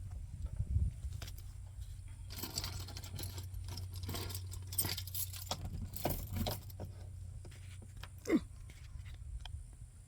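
A bunch of keys jangling and clicking in bursts, over a low steady hum, with a short falling squeak near the end.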